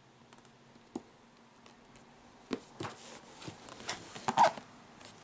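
Cardboard box being handled and turned over: a single tap about a second in, then a run of knocks and scraping rustles from about two and a half seconds, loudest near four and a half seconds.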